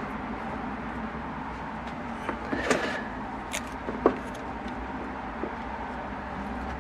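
A few small clicks and rustles of automotive wires and plastic crimp connectors being handled and pushed together, over a steady low hum.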